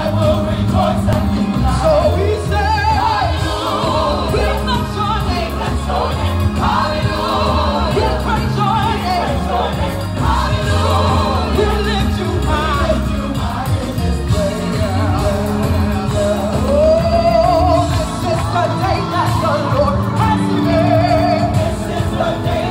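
Live gospel worship music: a group of singers over a band with a strong, stepping bass line.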